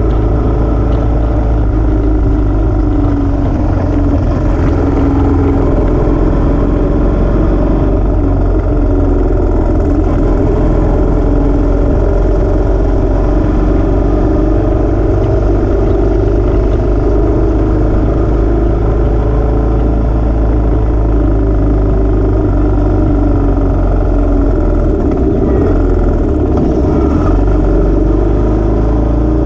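Royal Enfield motorcycle engine running steadily at road speed, heard from on board the bike, its pitch rising and falling a little through the bends.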